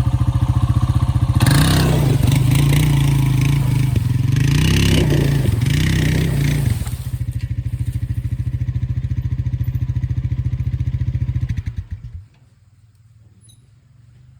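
Four-wheeler (ATV) engine working under load to drag a chained tree. It revs up hard about a second and a half in, with the pitch wavering, then settles back to a lower steady run and shuts off suddenly near the end.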